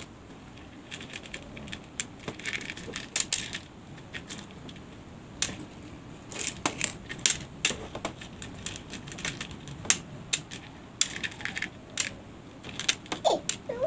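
Small hard coloured pieces from a seashell art kit clicking and clattering as they are picked out of a plastic bowl and dropped onto a plastic plate, in irregular scattered clicks.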